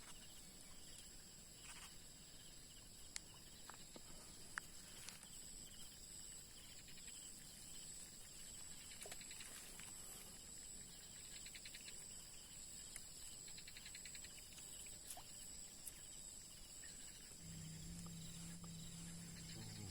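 Faint chorus of insects: a steady high-pitched drone with bursts of rapid trilling, plus a few light clicks. A low hum comes in near the end.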